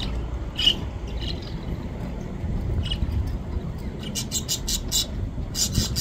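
Budgerigars chirping: short, high chirps now and then, a quick run of them about four seconds in and another near the end, over a steady low rumble.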